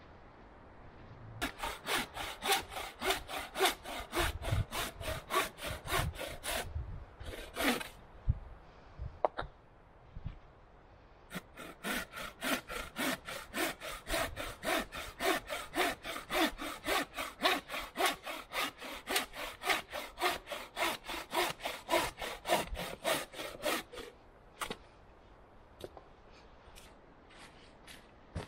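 Hand saw cutting through a log in quick back-and-forth strokes, about three a second: a short bout of sawing, a pause, then a longer steady bout that stops near the end.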